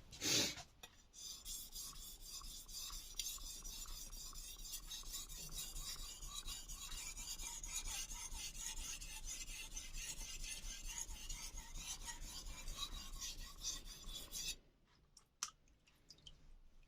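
Kai Shun VG-10 chef's knife being sharpened freehand on the 3000-grit side of a Solicut 1000/3000 combination whetstone: steady, rapid strokes of steel scraping across the stone, stopping abruptly near the end. A short knock just before the strokes begin, and a few light clicks after they stop.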